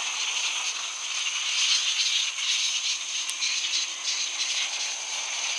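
A huge colony of flying foxes (fruit bats) calling all at once during the evening flyout: a dense, unbroken mass of high-pitched chattering and squabbling, with a steady high whine underneath.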